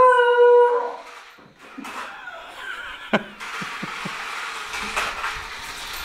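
Basenji giving a short howl that rises and then holds one pitch for just under a second, followed by softer scattered sounds and a sharp click about three seconds in.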